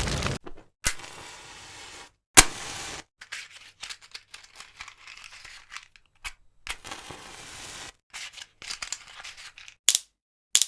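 Fire crackling and popping, with sharp cracks from burning material over a quieter crackling hiss. It comes in short separate takes that cut off abruptly to silence; the loudest crack is about two and a half seconds in, with two more near the end.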